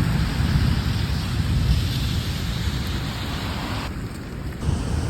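Heavy rain pouring down: a steady hiss with a low rumble on the microphone.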